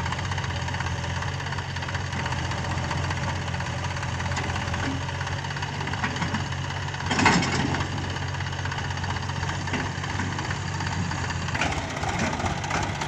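HMT 3522 tractor's diesel engine running steadily, with a brief louder burst of noise a little past halfway.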